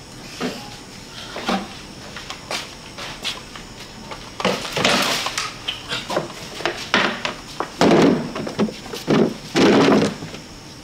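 A door and a person moving about: a run of knocks, thuds and scuffs, the loudest about four and a half seconds in and twice near the end, over steady cricket chirping.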